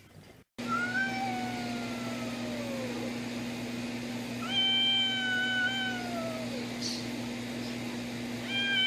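Cat yowling: three long, drawn-out meows of about two seconds each, the first sliding down in pitch, over a steady low hum.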